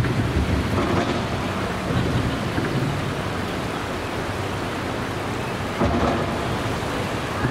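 Wind buffeting the microphone: a steady low rumbling rush with a louder gust about six seconds in.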